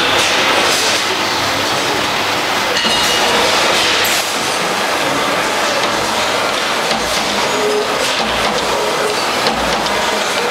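LVD Shape Delta 1250 EB thin-turret CNC punch press running, a dense, fast metallic clatter of punch strokes and sheet-table movement.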